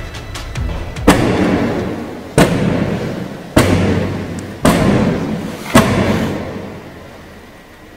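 Five heavy, evenly spaced thuds about a second apart, each echoing away, then fading out near the end.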